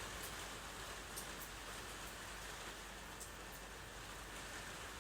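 Pot of chicken macaroni soup simmering on the stove: a faint, steady hiss of gentle bubbling with scattered small pops.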